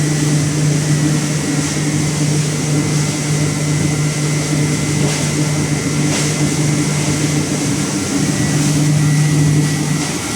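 Hammer mill running steadily as wood chips are fed in to be ground down: a loud, steady low hum with a thin high whine over it and a noisy wash from the grinding.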